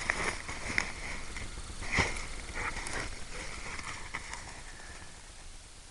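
Dry brush and twigs rustling and crackling as someone pushes through a briar thicket, with a few sharp snaps, the loudest about two seconds in, then growing quieter.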